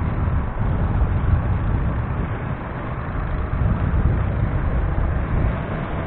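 Wind buffeting the microphone of a camera on a moving motorcycle, mixed with steady road and traffic noise.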